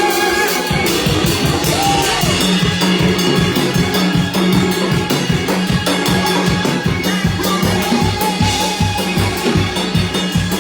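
Live church band playing fast shout music. A drum kit comes in about a second in with a quick, even beat, over a steady low bass tone.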